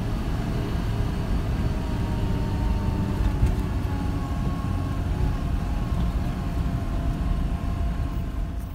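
Car engine and road rumble heard from inside the cabin while driving, with a faint steady whine above the low rumble. It fades out near the end.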